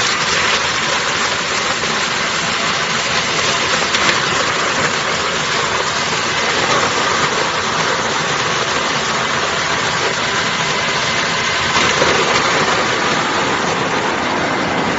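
ZC 100 coconut grating machine running while it grinds coconut meat: a loud, steady, even mechanical noise with no break.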